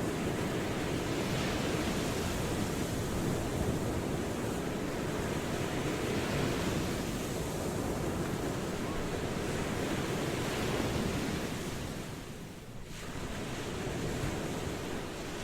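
Ocean waves washing in steadily, swelling and easing slowly, with a brief lull near the end.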